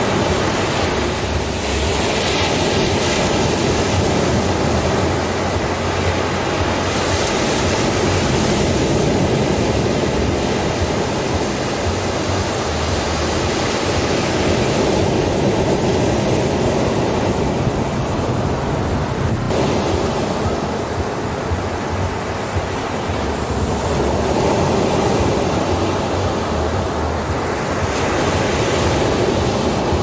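Ocean surf breaking and washing up onto a sandy beach: a steady rush of water that swells and eases every few seconds as the waves come in.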